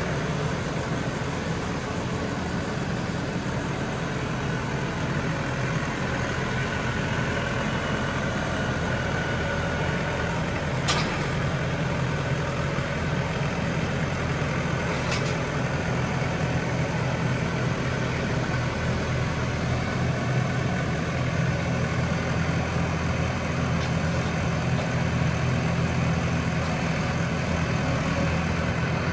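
Case IH Farmall 95C tractor's diesel engine running steadily as it works a front loader, with two short clicks about four seconds apart near the middle.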